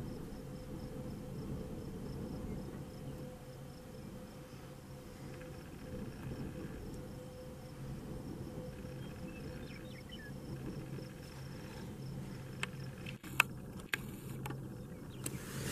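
Steady low hum of a vehicle idling, heard from inside the cab, with a faint high, evenly pulsing chirp over it. A few sharp clicks near the end.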